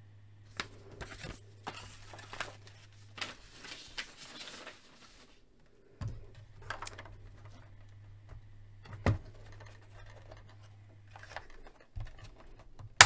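A paper instruction sheet rustles as it is handled. Then hard plastic toy parts knock and click as a piece is worked onto the hull, ending in one sharp, loud snap as it clicks into place.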